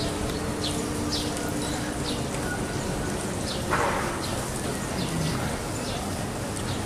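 Outdoor background with birds giving short high chirps scattered throughout, and one brief harsher noise about four seconds in.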